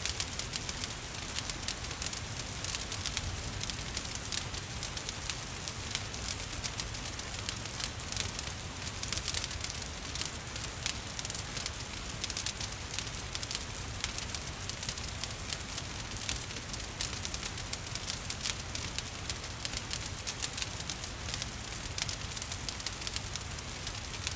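Wood fire crackling in a fireplace, dense irregular pops and snaps over a steady hiss of rain, with a low rumble underneath.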